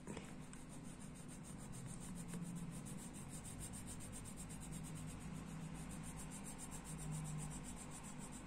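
Colored pencil rubbing on coloring-book paper in quick, even back-and-forth shading strokes, faint, over a low steady hum.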